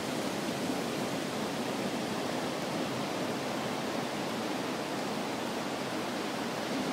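Heavy storm surf breaking along the shore, heard as a steady rushing wash with no single crash standing out.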